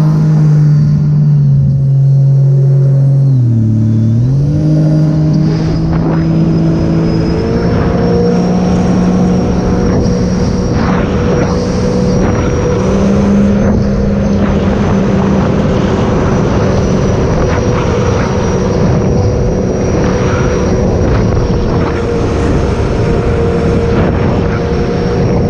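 Sea-Doo RXP-X 300 jet ski's supercharged three-cylinder Rotax engine, fitted with a free-flow exhaust, running under way. Its note dips briefly a few seconds in, then climbs and holds steady.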